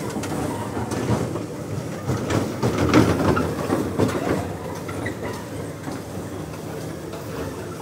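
Frog-shaped cars of a rotating children's amusement ride running round, a steady rolling rumble with a few knocks, loudest about three seconds in.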